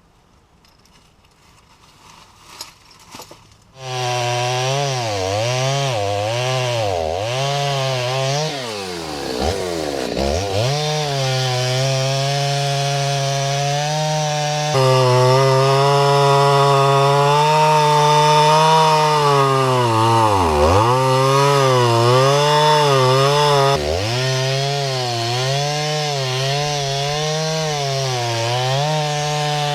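Stihl MS 390 two-stroke chainsaw cutting through a red oak log, starting abruptly about four seconds in. The engine runs at high revs, its pitch sagging and recovering again and again as the chain loads in the wood.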